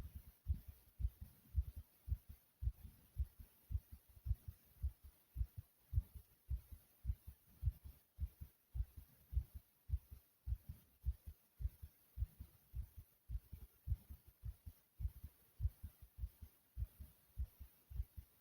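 A person's heartbeat, recorded close up: a steady rhythm of short, low thuds.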